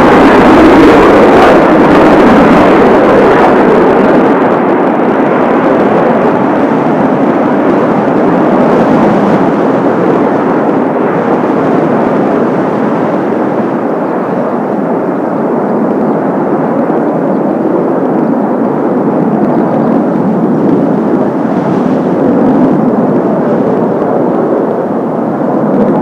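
Kawasaki T-4 jets of the Blue Impulse team taking off: a loud jet roar, strongest at the start, that loses its hiss after a few seconds and slowly fades as the aircraft climb away.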